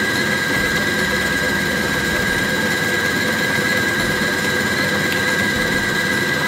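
Electric stand mixer running steadily with a high motor whine, beating eggs into creamed butter and sugar for cake batter in a steel bowl.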